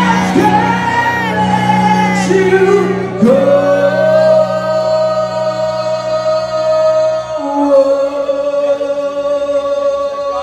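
Live rock band with a male lead singer: a few sung phrases, then one long held high note for about seven seconds over sustained band chords.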